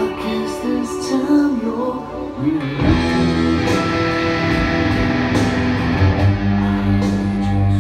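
Electric guitar, a Fender Stratocaster played through an Orange amplifier: a lead melody with bent, gliding notes, then from about three seconds in a fuller, heavier passage with low sustained notes.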